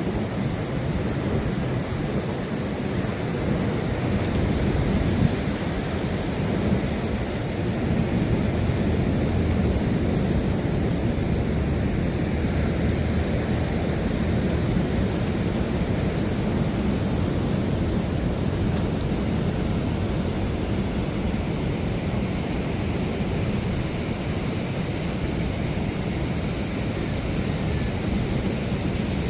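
Steady, unbroken noise of ocean surf and wind, heaviest in the low rumble, with no distinct events standing out.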